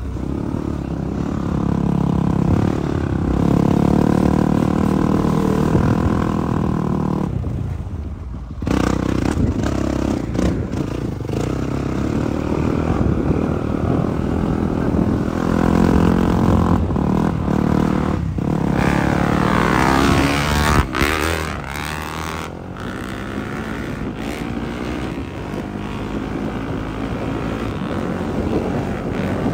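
Off-road vehicle engine running on a gravel trail under changing throttle, its pitch rising and falling, with a brief lull about eight seconds in.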